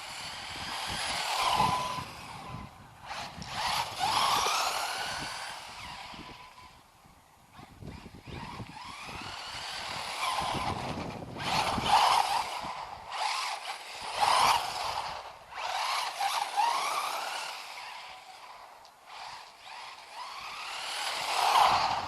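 Electric RC car's 3600 kV brushless motor whining up and down in pitch as it speeds up and slows through repeated passes, swelling loud as it comes close and fading as it goes away.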